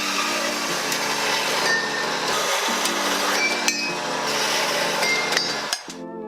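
Power saw running and cutting through thin steel two-stroke exhaust pipe: a steady, loud cutting noise with scattered metallic clinks. It cuts off suddenly near the end.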